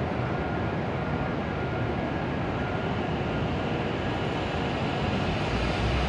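E7 series Shinkansen train starting to pull out of the station: a steady running noise that grows a little louder, with a low rumble coming in near the end.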